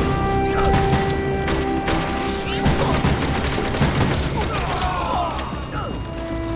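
Rapid automatic gunfire and explosions over a dramatic music score with held notes.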